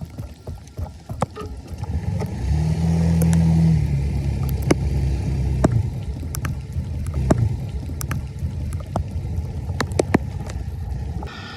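A low, steady motor-like rumble that starts a couple of seconds in and eases near the end, with scattered scrapes and knocks over it.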